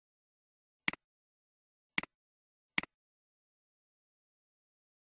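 Computer mouse button clicking three times, about a second apart, each click a quick press followed by a softer release tick.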